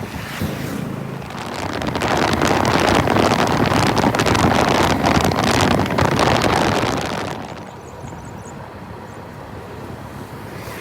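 Suzuki Gixxer SF motorcycle on the move, with wind rushing over the microphone and the engine running underneath. The wind noise swells about two seconds in, then drops away sharply near the three-quarter mark, leaving a quieter ride sound.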